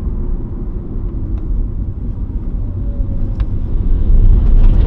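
2015 Subaru WRX's turbocharged flat-four, exhaust straight through a muffler delete, running at steady road speed: a low, steady engine and exhaust drone with road noise, heard inside the cabin, getting louder about four seconds in.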